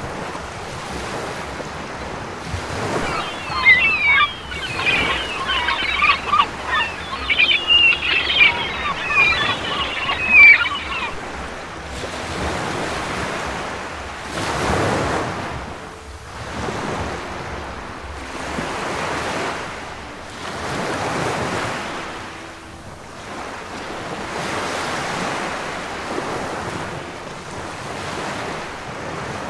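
Small waves lapping and washing onto a sandy shore in slow surges every couple of seconds, with wind buffeting the microphone. From about three to eleven seconds in, a busy high chirping chatter sits over the surf.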